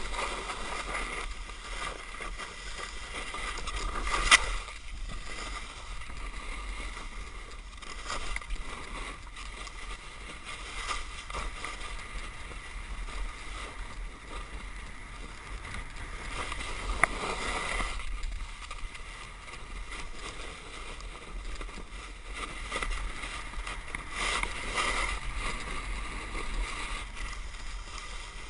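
Snowboard sliding and scraping over snow, a steady hiss that swells into louder scrapes on the turns: about four seconds in, around seventeen seconds and again near the end. A low wind rumble runs under it.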